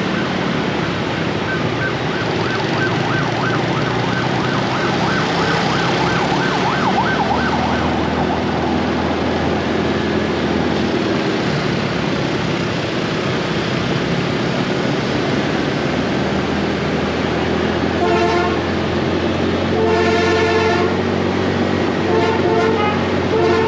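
Motorbike engine and city traffic noise while riding, with a rapidly pulsing, warbling high tone over the first several seconds. Three short horn honks sound in the last few seconds.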